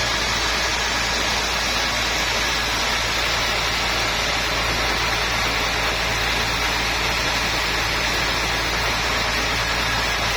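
Sawmill machinery running steadily: a constant engine-like hum under an even hiss, with no change in level.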